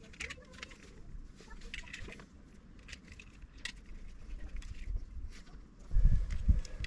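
Light scattered clicks and rattles of a Humminbird sounder's multi-pin cable connector and its wires being handled, then a louder low rumble begins near the end.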